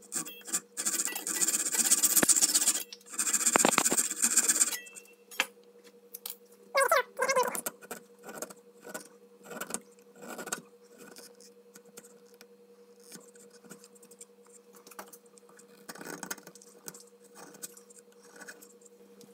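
Fine-toothed flush-cut hand saw sawing walnut splines flush with an oak frame corner, in two runs of quick strokes over the first five seconds. Then short, scattered scrapes and taps as a chisel pares the corner, over a steady low hum.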